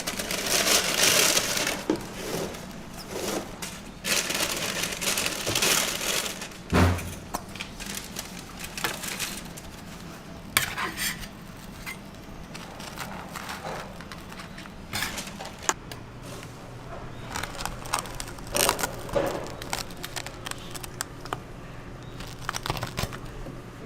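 Rustling and crinkling in stretches, with scattered clicks and one sharp knock about seven seconds in.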